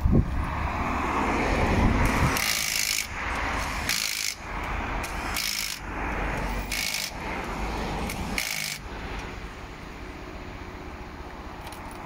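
Hand tools working at the wheels during a roadside rally-car tyre change: a knock, then five short, harsh scraping strokes about a second and a half apart, and quieter after the last one.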